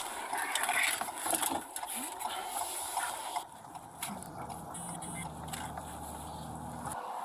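Inside a police patrol car on the move: vehicle cabin noise with scattered knocks and rustling for the first few seconds. Then comes a steady low engine hum, with a few short high beeps about five seconds in.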